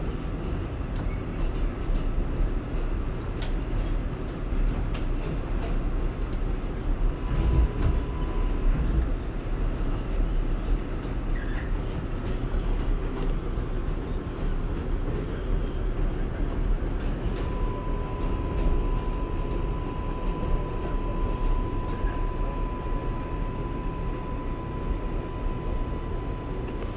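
R188 subway train running in an underground station: a steady rumble with wheel and rail noise, and a steady high whine that joins about two-thirds of the way in.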